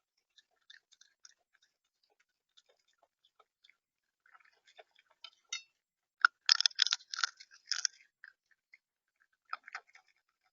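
Irregular sharp clicks and crunches of a bird pecking seed on the feeder right by the camera's microphone, with a louder flurry of rapid taps about six seconds in.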